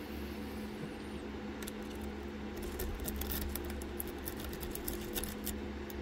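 Light metallic clicks and ticks of lock-picking tools being handled at a dimple lock cylinder, clustered through the middle, over a steady low background hum.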